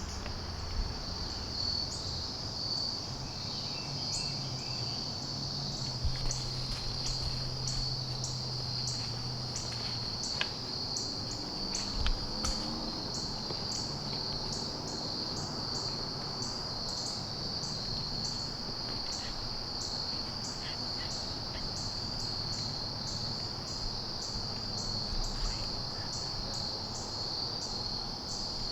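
Steady chorus of insects such as crickets: a continuous high trill with short chirps repeating about twice a second. A faint low hum comes in early on and fades out about a third of the way through.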